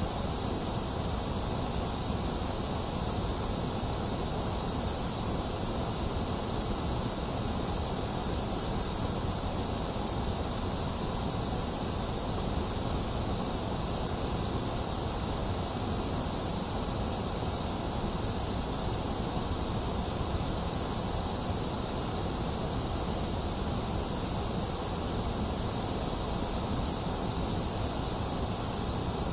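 Box fan running together with steady rain, with no thunder: an even, unchanging rushing hiss with no distinct drops or knocks.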